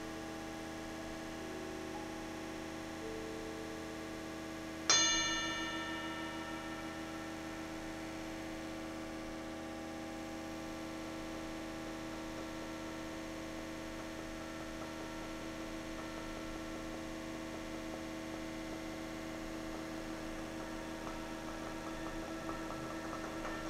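A steady sustained drone of several held tones. About five seconds in, a single struck metal percussion instrument rings out bell-like and fades back into the drone.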